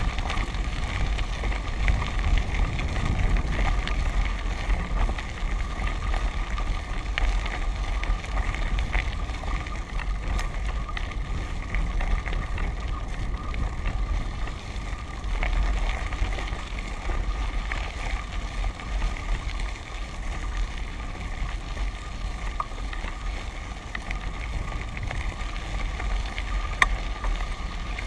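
Wind buffeting the microphone of a moving camera, over the steady rolling noise of tyres on a gravel road, with scattered small clicks of stones.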